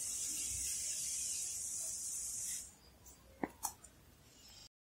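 Asus VivoBook 15 laptop running with a steady high hiss as Windows shuts down. The hiss cuts out about two and a half seconds in as the laptop powers off. Two faint clicks follow about a second later.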